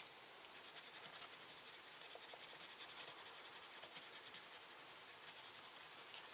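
Pencil scratching on paper in quick back-and-forth strokes, rubbed over a bracket's screw holes to mark their positions on a paper template.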